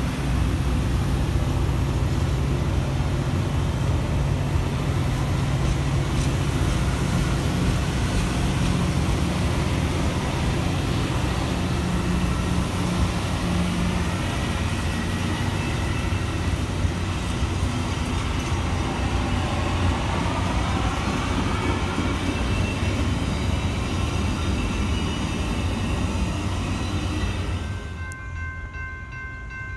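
Metra commuter train's stainless-steel bilevel passenger cars rolling past: a steady rumble of wheels on rail that falls off sharply near the end as the last car clears.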